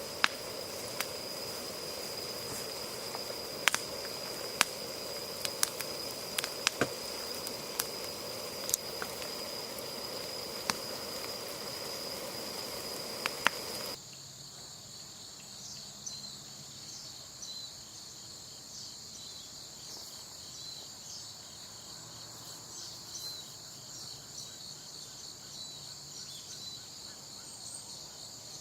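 Wood campfire crackling, with a dozen or so sharp pops, over a steady high insect drone. About halfway through the sound cuts to insects alone: steady high trilling with small regular chirps.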